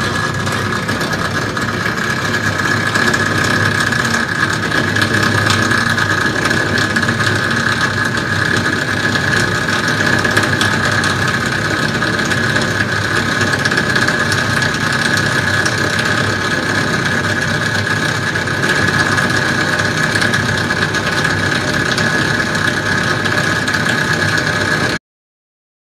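CNC plate drilling machine's spindle driving an end mill through metal plate: a steady high whine over continuous cutting noise, which cuts off suddenly near the end.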